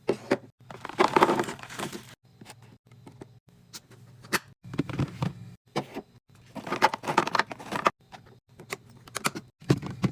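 Clicks, knocks and crinkling of plastic containers and food packaging being handled and set down while restocking a fridge, in short bursts with abrupt cuts between them, over a faint low hum.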